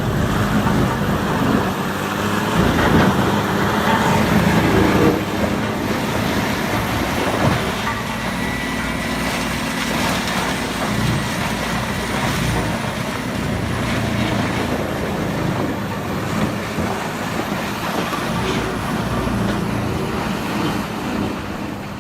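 Heavy earthmoving machine's diesel engine running steadily under load, with a few sharp knocks in the first several seconds.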